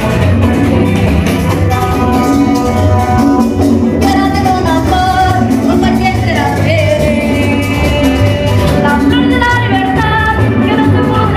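A student band playing Latin-style music live, with congas, drums and bass guitar keeping a steady beat under a young woman singing the melody.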